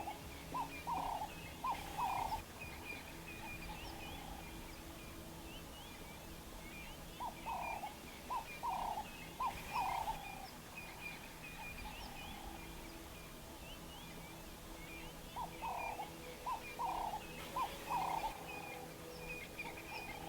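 A bird gives a series of five or six loud, clucking call notes, three times about eight seconds apart. Smaller birds chirp steadily throughout.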